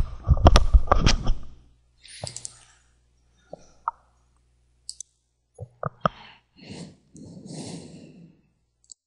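The tail of a man's spoken phrase in the first second and a half, then breathing close to the microphone, twice, with a few short, sharp clicks scattered between.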